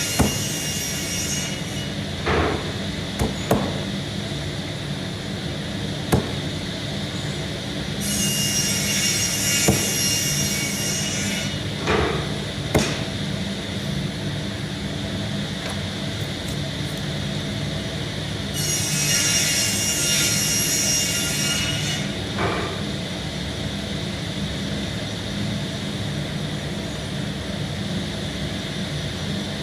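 Woodworking machine running steadily with a low hum, with three hissing stretches of about three seconds each as wood is fed through it, and a few sharp knocks of wood between them.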